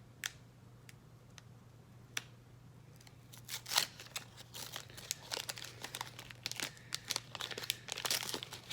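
A small Pokémon trading-card pack's wrapper being torn open and crinkled in the hands: a few scattered crackles, then dense crinkling and tearing from about three and a half seconds in.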